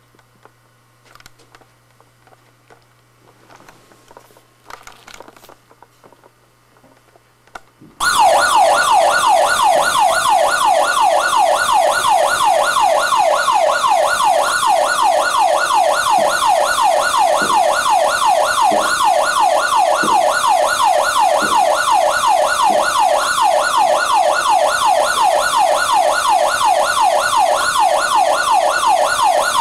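Quiet room with a low hum and a few soft knocks for about eight seconds, then a fake fire alarm starts suddenly and loud: a siren of rapid rising sweeps, repeating without a break.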